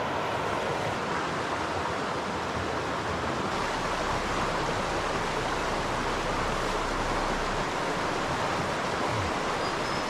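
River water rushing steadily over rocks, a constant even rush.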